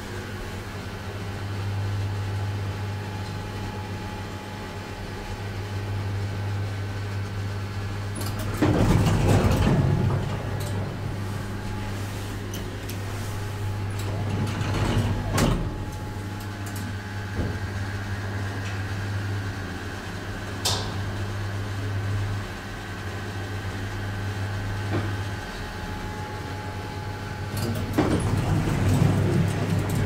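Schindler passenger elevator travelling, with a steady low hum from the car and a few knocks and clunks along the way. Near the end the cab doors slide open.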